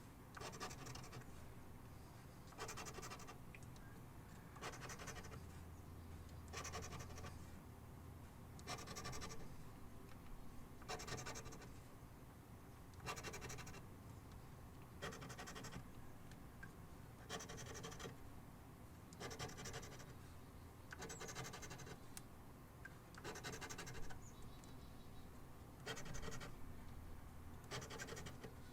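A lottery scratch-off ticket being scratched, its coating rasped off in short strokes about every two seconds as rows of numbers are uncovered.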